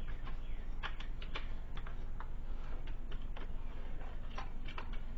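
Scattered light clicks and taps of small metal electrical parts and wire being handled and fitted, over a steady low hum.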